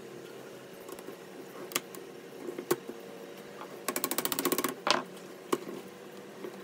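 Wooden parts of a lamp frame knocking and clicking as curved wooden ribs are pushed into slotted wooden discs by hand: a few single sharp knocks, and about four seconds in a quick rattling run of clicks lasting under a second, followed by a louder knock.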